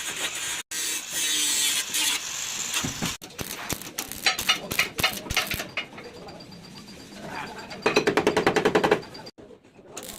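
Rapid mechanical rattling and knocking from bodywork tools, in short pieces cut together. The loudest part is a fast rattle of about ten strokes a second near the end.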